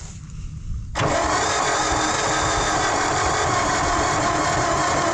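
Starter cranking a John Deere 1010 crawler loader's four-cylinder engine, beginning suddenly about a second in and turning it over steadily. The engine turns over without firing and with no compression in number four, as in all four cylinders, which the owner suspects is valves hung open.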